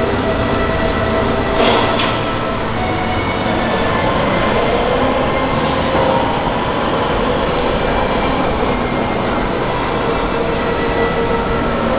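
Steady machinery noise in a railway rolling-stock workshop, with several held tones running through it and two sharp metallic knocks about two seconds in.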